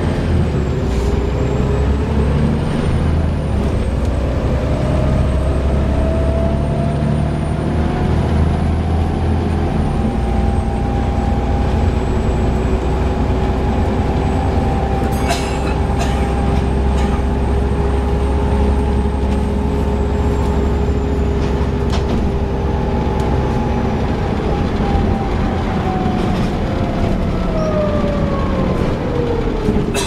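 Bus drivetrain heard from inside the saloon: the ZF automatic gearbox and driveline whine rising in pitch as the bus accelerates, holding steady while it cruises, then falling as it slows near the end. A faint high hoover-like whistle moves with it, and a couple of sharp clicks come about halfway.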